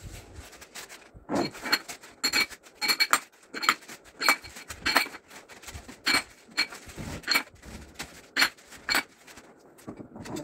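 Black metal rods of a tower-lamp frame clinking and knocking against each other and the tiled floor as they are handled, about fifteen sharp, ringing clinks at irregular intervals.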